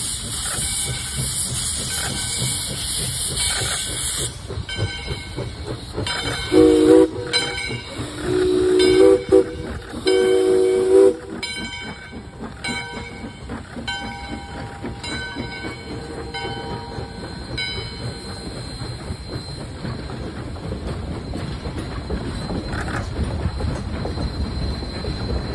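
2-8-2 Mikado steam locomotive No. 40 pulling out with a train. Steam hisses for the first few seconds, then its whistle sounds three times, a short blast followed by two longer ones, about six to eleven seconds in. After that the engine and coaches rumble past, with wheels clicking over the rail joints.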